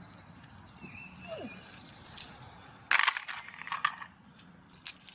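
Small metal clicks and rattles of fishing tackle being handled as a pike lure is unclipped from an easy-link swivel and another clipped on, with a loud clattery burst about three seconds in and a few more clicks after it.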